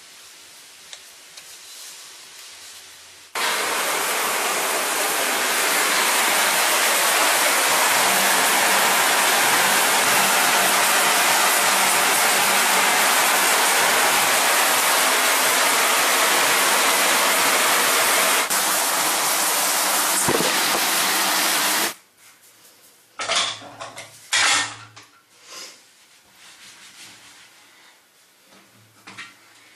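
Handheld hair dryer running: it switches on about three seconds in, blows with a loud, steady rush of air and motor hum, and cuts off abruptly about 22 seconds in, after which there are only faint scattered knocks and rustles.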